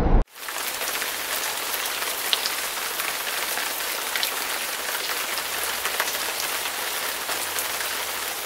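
A louder sound cuts off abruptly at the start. A steady rain-like hiss with scattered light ticks follows and begins to fade near the end.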